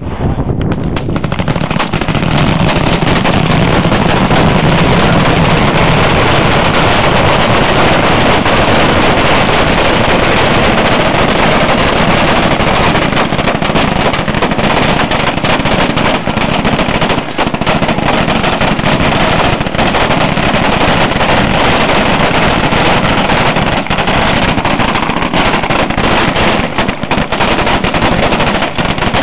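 Rapid gunfire, shots following so closely that they run together with hardly a pause, with only brief dips now and then.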